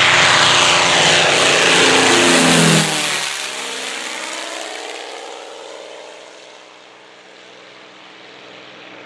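P-51 Mustang's V-12 piston engine and propeller making a loud low pass overhead. The pitch drops sharply as it goes by, about three seconds in, and then the engine fades as the plane flies away.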